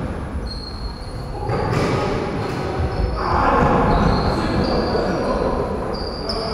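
Basketball game on a wooden gym floor: the ball bouncing, sneakers squeaking, and players' voices, all echoing in the hall.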